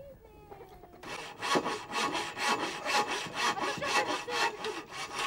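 Hand saw cutting wood in even back-and-forth strokes, about four a second, starting about a second in.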